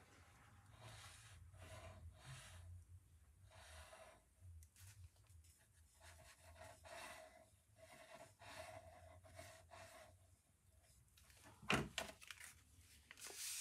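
Faint rustling and handling of folded card stock, with one sharper tap or click near the end.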